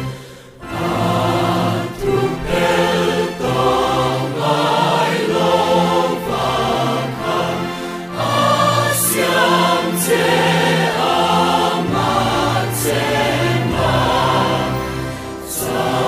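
Mixed church choir of women and men singing a gospel hymn in harmony, with a brief pause between phrases just after the start.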